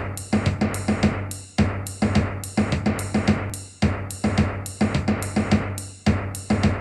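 Instrumental song intro: a drum kit plays a repeating rhythm of bass drum, snare, hi-hat and cymbal strikes, the pattern coming round about once a second, over a steady bass line. No singing.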